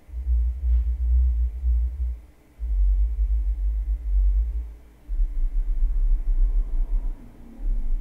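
Bass test tones from a calibration disc played through a Monolith Audition T5 tower speaker and an SVS 3000 Micro subwoofer after EQ. Four deep tones of about two seconds each, with short gaps between them, each one lower than the last, stepping down from 80 Hz to 32 Hz.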